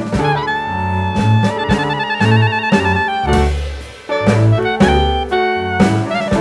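Jazz-style music with a saxophone or brass lead over bass and drums. The lead holds a wavering note with vibrato about two seconds in, and the music dips briefly about four seconds in.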